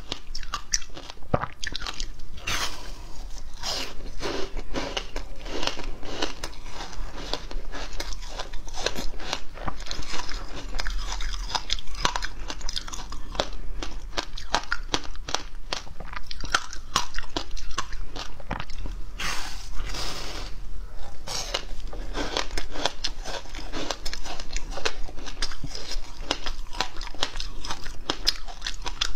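Teeth biting into and chewing a thin sheet of frozen passion fruit ice, with a continuous run of sharp crunches and crackles as the ice breaks up in the mouth.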